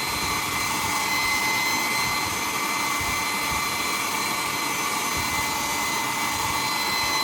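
Handheld hair dryer running steadily, blowing air through wet long hair, with a steady high whine over the rush of air.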